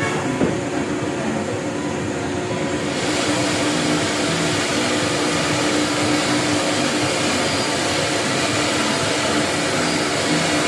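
CNC router running steadily: a rushing machine noise over a few steady hum tones. About three seconds in it gets louder and brighter in the upper range.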